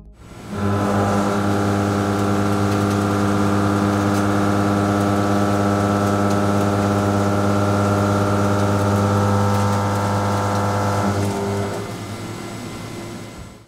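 Walter BLAXX M3024 Heptagon face mill, 63 mm with six inserts, finish-milling 42CrMo4 steel. It makes a steady, even cutting hum that starts about half a second in. About eleven seconds in it drops to a quieter run, then stops suddenly.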